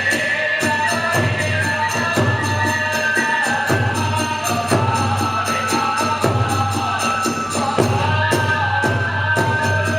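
Kagura accompaniment: a drum beating a steady pulse, small hand cymbals clashing rapidly and evenly, and a bamboo flute holding long high notes over them.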